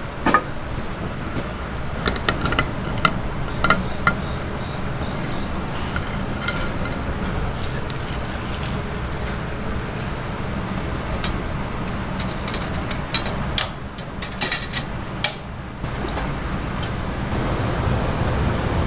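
Steady kitchen background noise with scattered metallic clinks of stainless steel cookware being handled: a mesh basket and bowl knocking together as they are filled. The clinks come a few at a time early on and in a quick cluster about twelve to fifteen seconds in.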